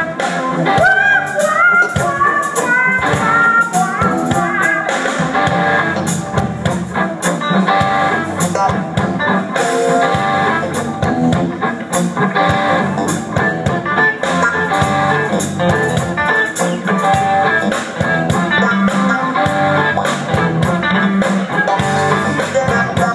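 Live band playing a blues-rock number with electric guitar and drums, a guitar line bending in pitch in the first few seconds.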